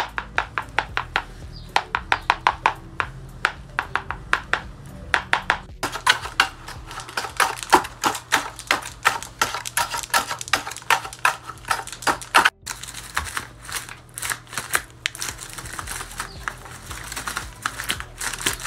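Paper dragon puppets' jaws snapping shut over and over, a fast run of dry paper clacks, several a second, with the crunch of the paper teeth meeting. The clacking breaks off briefly about 6 seconds in and again past the middle, then carries on.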